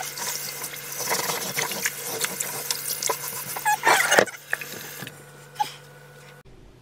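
Stainless steel scrubber scouring the ridged surface of a cast iron grill pan under running tap water, a fast scratchy rasp with water splashing, loudest just before four seconds in. The scrubbing stops about five seconds in, leaving quieter water sounds.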